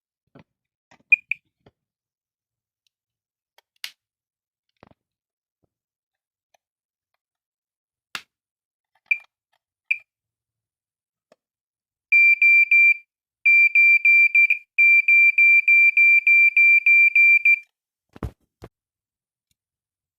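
Smoke alarm sounding when tested: a few short high chirps, then a fast pulsing beep, about three or four beeps a second, for roughly five seconds with a brief break near the start. The alarm is working despite its broken cover. Sharp clicks fall between the early chirps, and a thump comes near the end.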